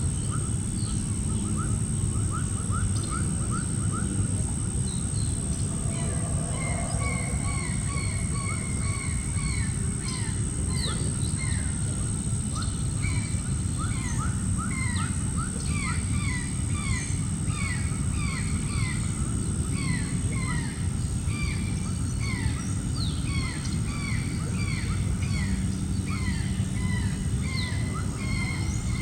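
Many birds calling at once: short falling chirps repeated rapidly at a few different pitches, growing denser about six seconds in. Beneath them is a steady low rumble, and over them a constant high whine.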